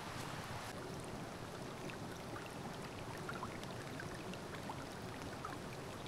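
Steady wash of rain and running stream water, with scattered light drops ticking.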